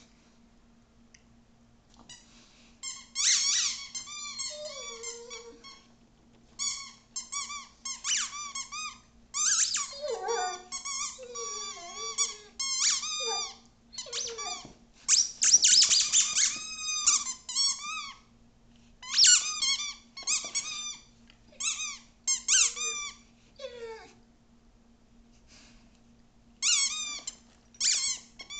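Rubber squeaky toy squeaking in quick runs of high squeaks as a Rhodesian Ridgeback chews it, with pauses between the runs. It is quiet for the first couple of seconds and again shortly before the end.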